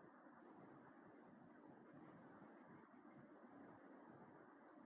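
Near silence, with a faint, steady, high-pitched cricket chirring in the background.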